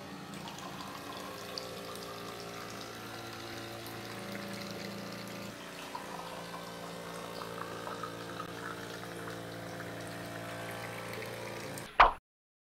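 Small DC motor of a homemade bottle water dispenser humming steadily as it pumps, with water pouring from the PVC spout into a glass. A sharp click near the end, then the sound cuts off.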